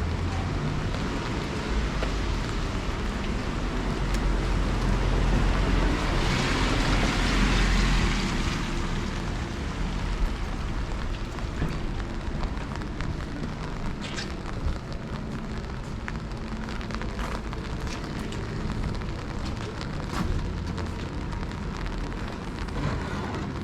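Street ambience in steady rain: an even hiss of rain with a low rumble underneath, and scattered faint ticks of drops. A louder swell of noise and rumble builds about six seconds in and fades by eight.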